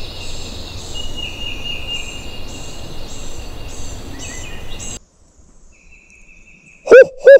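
Woodland ambience of birds and insects: a high chirp repeating about twice a second over a steady high tone. It cuts off about five seconds in, and near the end come two loud, short caws from a crow locator call, the kind a turkey hunter blows to make a gobbler shock-gobble.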